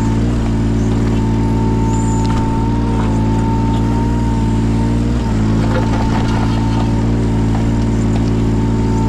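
Yanmar 017 mini excavator's diesel engine running steadily under load, with a steady high whine over it and a short dip in the engine note about five seconds in.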